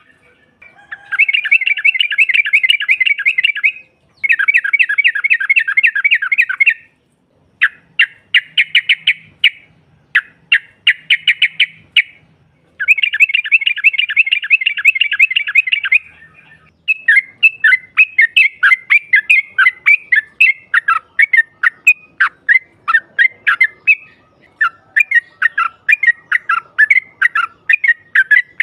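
Yellow-vented bulbul calling: several runs of rapid chattering trills, each a few seconds long with short pauses between, then a quicker string of separate bright notes over the last ten seconds or so.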